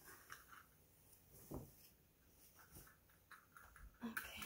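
Faint rustling and scraping of a cloth garment bag being handled, with a soft thump about a second and a half in and louder rustling near the end.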